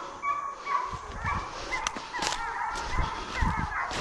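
A pack of deer hounds baying and yelping together, many wavering calls overlapping as they run a deer through the woods. Low rumbles on the microphone come in about a second in.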